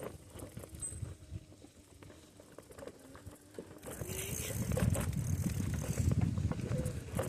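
Mountain bike rolling over a bumpy dirt trail: tyre noise with scattered rattles and knocks, growing much louder about four seconds in.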